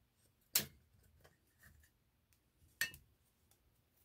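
A small metal can of wood stain being opened: two sharp clicks about two seconds apart as the lid is pried off and handled, with faint small handling noises between.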